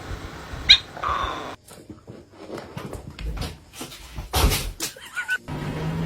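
A pet animal's short cry about a second in, followed by a run of knocks and thumps, the loudest a little past four seconds.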